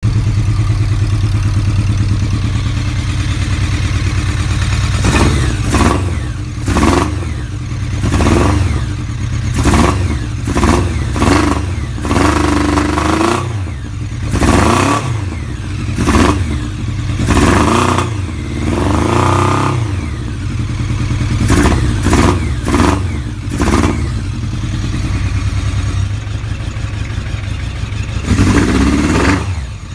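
Kawasaki ZRX motorcycle's inline-four engine, idling and then blipped through a string of short revs that rise and fall. It settles back to idle, with one more rev near the end. The engine is misfiring.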